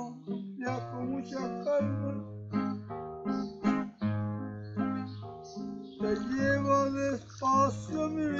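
Acoustic guitar played as a song accompaniment, picked bass notes alternating with chords in a steady rhythm. A man's singing voice comes in over it about six seconds in.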